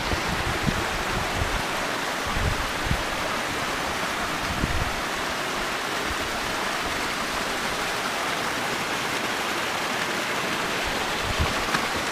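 Water rushing steadily down a narrow, steep stone irrigation channel, with a few soft low thumps.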